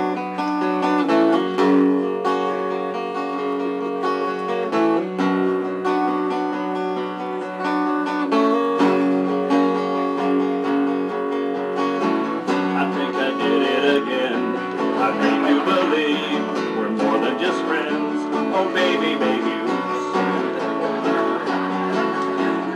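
Acoustic guitar strumming chords as an instrumental lead-in, the chords changing every second or two and the playing growing busier about halfway through.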